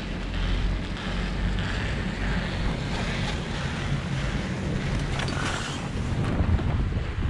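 Wind buffeting the microphone over rushing water, a steady low rumble with a hiss above it.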